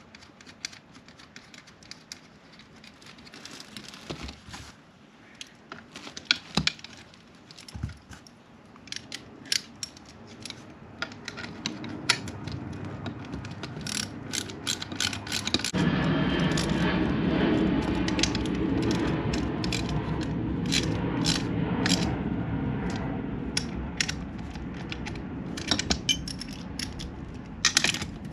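Hand tools and metal shifter hardware clicking and clinking, with the ratchet-like clicking of a bolt and nut being fastened. About halfway in, a steady rushing noise starts suddenly and runs under the clicks until near the end.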